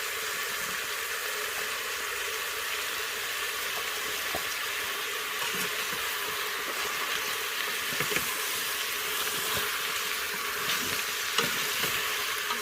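Food frying in hot oil in a pan: a steady sizzle with a few faint crackles.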